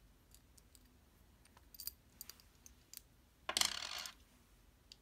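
Light metallic clicks of pure-copper fidget spinners and their parts being handled, with a small cluster about two seconds in. Then a louder rattle lasting about half a second, some three and a half seconds in.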